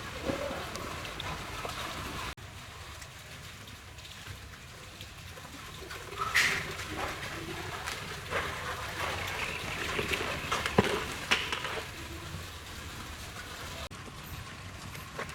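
Water splashing and running during a car wash, with scattered clicks and knocks; the sound changes abruptly twice, at edit cuts.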